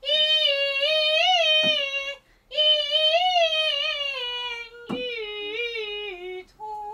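A single high voice singing a Peking opera passage unaccompanied: long held notes with a slight waver, in three phrases broken about two seconds in and near the end, the line sinking gradually in the last two phrases. A sharp tap comes twice, a few seconds apart.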